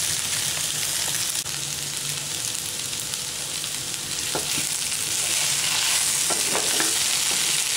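Cubes of pressure-cooked potato sizzling steadily in oil in a nonstick frying pan over a low flame, stirred with a wooden spatula, with a few short spatula scrapes in the second half.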